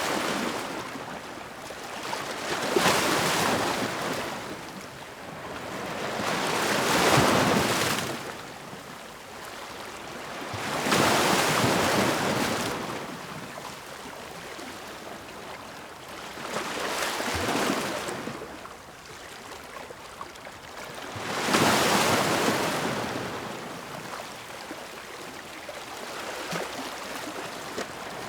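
Ocean waves breaking and washing in, each surge swelling and fading about every four to five seconds, with quieter hiss of water between.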